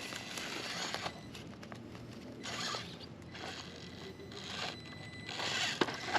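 Small Traxxas TRX-4M RC crawler driving over rough ground: its electric motor and steel transmission gears whirr with a gear whine, surging as the throttle comes on, mixed with tyres and chassis scraping and crunching over the terrain.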